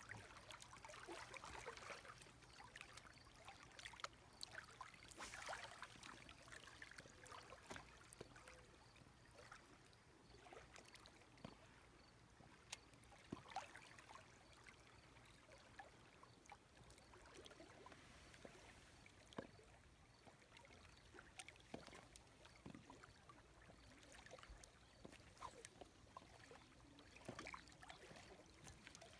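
Near silence: faint outdoor ambience with light water lapping and scattered small clicks and ticks.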